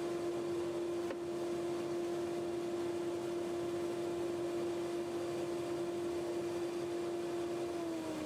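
Wood lathe motor running at a steady speed with an even whine. Near the end the whine drops slightly in pitch as the speed comes down.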